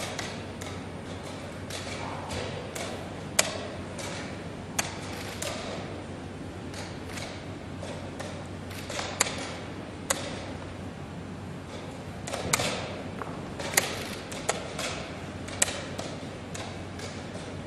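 Wooden chess pieces set down hard on a wooden board and chess clock buttons pressed in quick succession during a blitz game: irregular sharp knocks and clicks, a dozen or more, over a steady low background hum.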